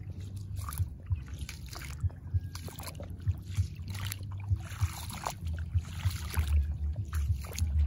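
Footsteps crunching over dry seagrass litter on sand, a few irregular crackly steps a second, over a low rumble of wind on the microphone that grows stronger after about four seconds.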